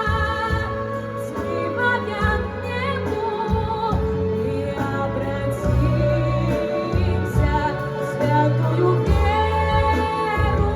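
A song: a woman's voice singing long held notes with vibrato over a backing track with a steady bass line.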